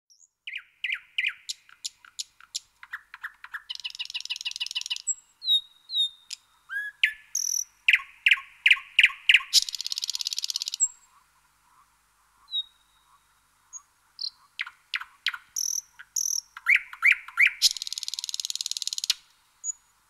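Nightingale singing: varied phrases of repeated sharp notes, clear whistles and fast buzzy trills, separated by short pauses, with a gap of about two seconds midway.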